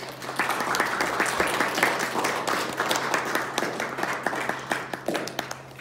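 Audience applauding: many quick hand claps that start at once and die away shortly before the end.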